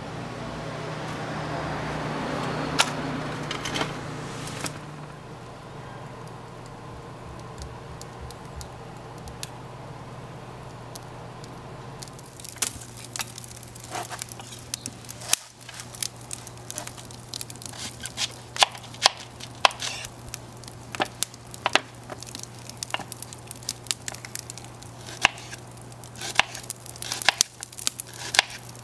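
Kindling catching alight in a brick grill after a match is struck, with a rising rush of flame and a few crackles. After about twelve seconds, a wood fire crackling with many sharp irregular pops while a knife cuts an onion on a wooden cutting board.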